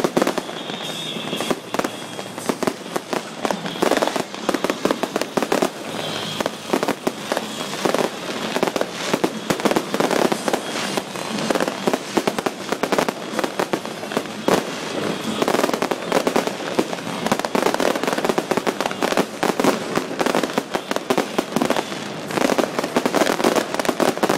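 Fireworks going off without a break: a dense, continuous run of bangs and crackling.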